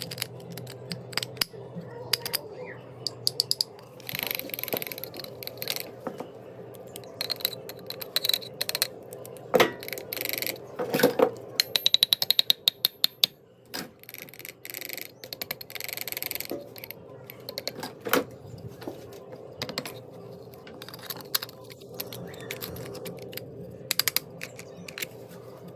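Small metal parts and hand tools clicking, clinking and scraping against each other in many short irregular strikes, busiest in the middle, over a faint steady hum.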